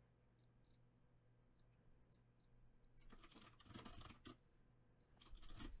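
Faint computer mouse clicks and keyboard keystrokes: a few light clicks, then a denser run of clicks about three to four seconds in, over a faint low steady hum.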